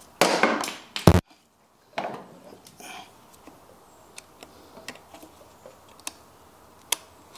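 Small metallic clicks and scrapes of a flat-blade screwdriver working at a motorcycle chain's master-link spring clip, trying to pop it loose. A short rush of noise and a sharp knock about a second in are the loudest sounds, then scattered light clicks.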